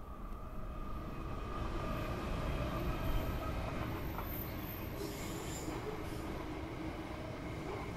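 Diesel-electric freight locomotive running past close by, then a long train of steel-coil wagons rolling by with a steady low rumble. A thin squeal from wheels on the curve runs underneath, and from about halfway in there are sharp clicks of wheels over the rails.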